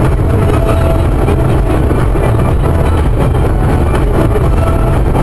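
Steady loud cabin noise of a car at high highway speed, about 200 km/h: engine, tyre and wind noise running together with a deep rumble.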